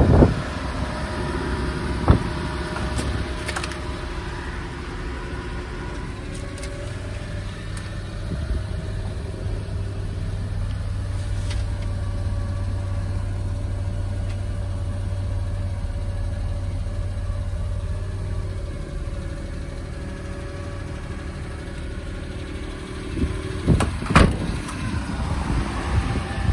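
The 1992 Suzuki Carry's 657 cc F6A three-cylinder engine idles steadily. A door thumps shut about two seconds in. Through the middle stretch the dashboard vent fan adds a steady hum, and near the end wind buffets the microphone.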